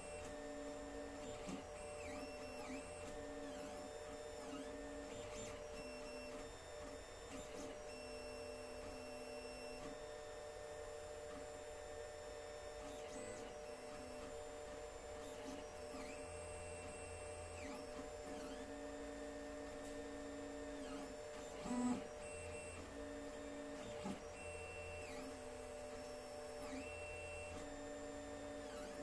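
Alfawise U10 3D printer printing, its stepper motors whining in short runs that keep changing pitch as the print head and bed move back and forth, over a steady hum. One brief louder click about three quarters of the way through.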